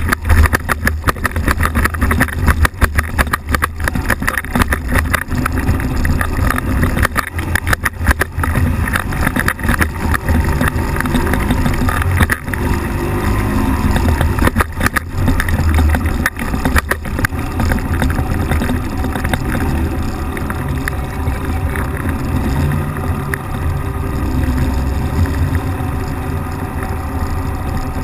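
Ultralight trike's engine and propeller running, with a strong low rumble. Rough, irregular buffeting through the first half settles to a steadier noise later on.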